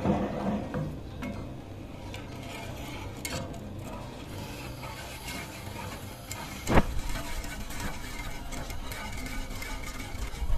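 A wire whisk stirring a thin milk mixture in a nonstick pan, its metal wires scraping and lightly clinking against the pan, with one sharper clink about seven seconds in.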